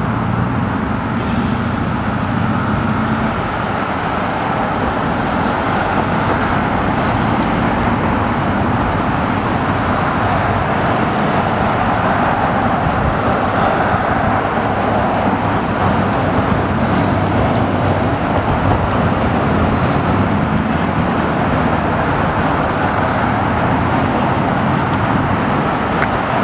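A motorcade of SUVs, vans and police cars driving past at speed: a steady mix of engine and tyre noise on the road, with no sirens.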